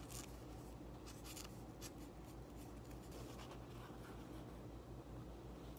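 Marker pen writing on a paper towel: faint short scratchy strokes, mostly in the first two seconds, over a low steady hum.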